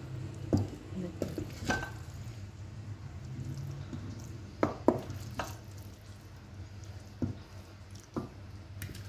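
Wooden spatula scraping and knocking as cooked okra and potato are served into a glazed ceramic bowl, with a string of short sharp taps, the loudest about five seconds in.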